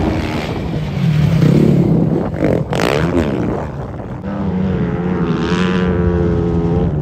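Rally motorcycle engine running hard as it climbs a sand dune, its pitch holding and then rising slightly near the end, with wind on the microphone.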